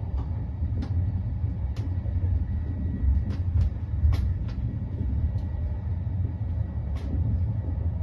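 Steady low rumble of a passenger train running on its rails, heard from inside the carriage, with scattered short sharp clicks.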